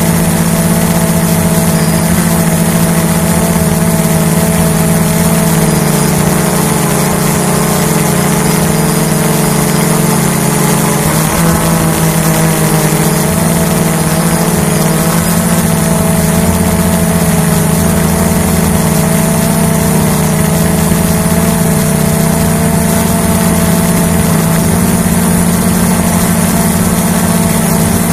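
Hubsan H109S quadcopter's motors and propellers running steadily in flight, picked up by its own onboard camera: a loud, constant hum with a high hiss above it, the pitch shifting slightly about halfway through.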